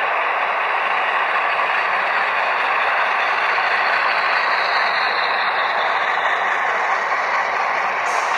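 HO scale model freight cars rolling past on the track: a steady clatter and rumble of small metal wheels on rail, with a couple of sharp clicks near the end.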